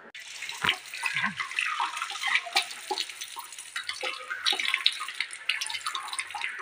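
Water running from an old metal wall tap and splashing onto a tiled floor, a steady hiss broken by many small splatters and clicks.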